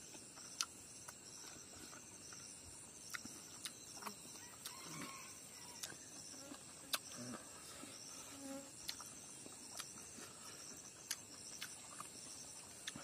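Insects chirping in a steady, high, pulsing chorus, with scattered sharp clicks and small quiet sounds of someone eating by hand.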